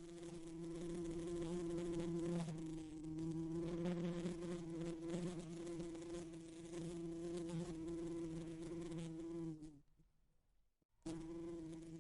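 A bee buzzing against a window pane: a steady, even buzz that breaks off nearly ten seconds in and starts again about a second later.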